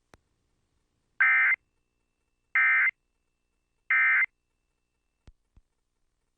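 Emergency Alert System end-of-message (EOM) signal: three short bursts of buzzy two-tone digital data chirps, evenly spaced about a second and a half apart, marking the close of the alert. Two faint clicks follow near the end.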